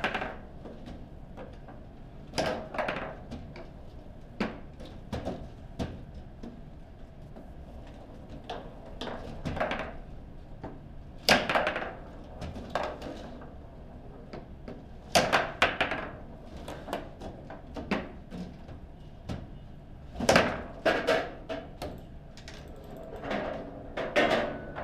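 Foosball table in play: the ball struck by the plastic players and the rods banging against their stops, heard as sharp clacks and knocks in quick irregular clusters of a few strikes each.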